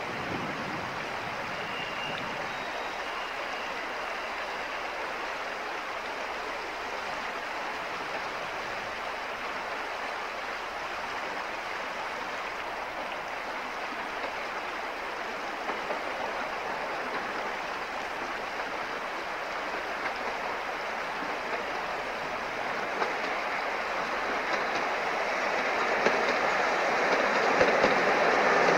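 A first-generation diesel multiple unit approaches along the track, its engine and wheel noise growing louder over the last few seconds. A stream runs steadily underneath.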